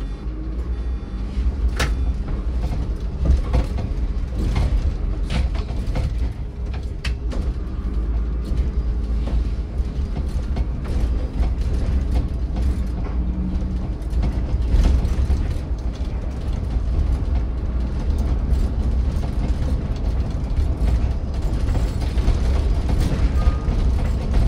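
City bus driving, heard from inside: a steady low engine and road rumble with frequent rattles, creaks and knocks from the body and fittings.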